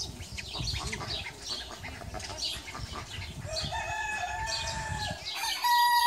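Japanese bantam rooster crowing, starting about halfway through: a drawn-out call that steps up in pitch and is loudest near the end. Before it comes a run of short, high chirps.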